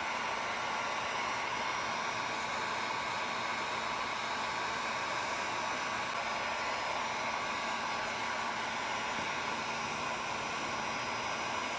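Steady, unchanging rushing background noise with a faint hum, like a fan or blower running.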